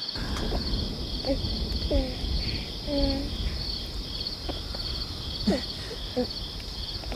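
Crickets chirping steadily in short, evenly repeated pulses, over a low rumble and a few faint, short voice-like sounds.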